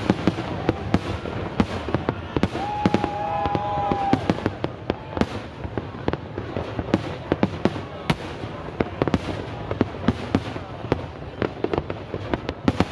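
Aerial fireworks bursting continuously: a dense, irregular string of sharp bangs and crackles. A held high tone sounds for over a second about three seconds in.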